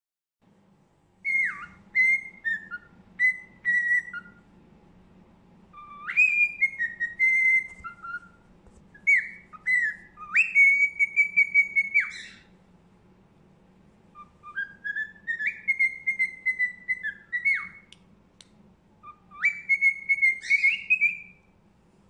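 Pet cockatiel whistling a learned tune: five short phrases of clear high notes, many sliding up into held tones, with brief pauses between phrases.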